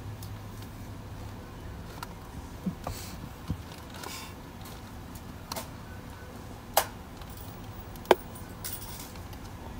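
A few scattered sharp clicks and knocks over a faint steady background, with a low hum that fades about a second and a half in.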